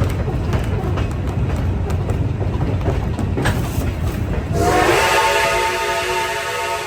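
Train cars rolling with a low rumble and clicks from the rails. About two-thirds of the way in, a steam locomotive whistle starts one long blast that is still sounding at the end.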